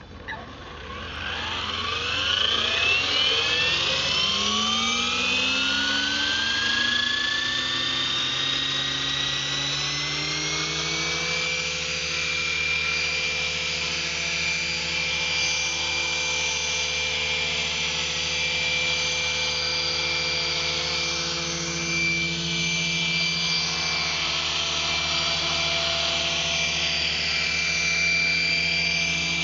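Gaui 425 Hurricane radio-controlled helicopter's electric motor and rotor spooling up: a whine rising in pitch over about the first ten seconds, then running at a steady pitch with slight wavers.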